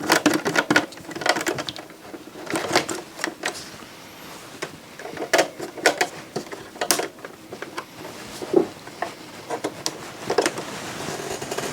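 Irregular clicks and knocks of screws and metal and plastic parts being handled while a DVD receiver's casing is taken apart, with a cluster of sharper knocks near the start, around the middle and near the end.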